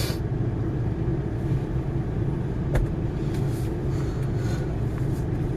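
Large diesel engine of heavy mining machinery running steadily with a constant low hum, with one sharp click a little under three seconds in.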